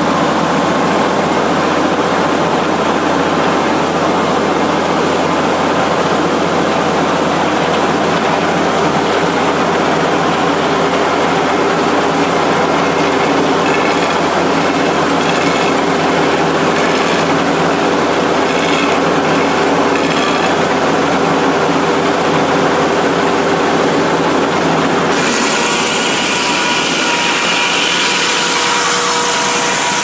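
Frick 00 circular sawmill running: a steady mechanical drone of the power unit, spinning blade and carriage. About 25 seconds in, a harsher hiss joins as the blade begins cutting into the southern yellow pine log.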